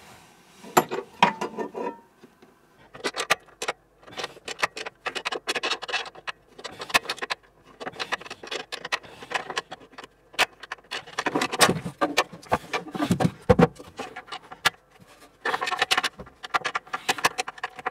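Irregular clicks, taps and rustling of close hand work as a mounting screw is fastened on an inverter/charger in a tight locker, with a heavier knock about thirteen seconds in.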